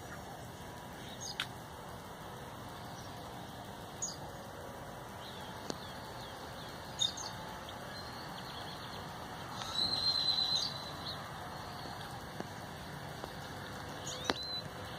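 Birds chirping outdoors: scattered short high chirps over a steady faint background hiss, with a longer, louder trilled call about ten seconds in.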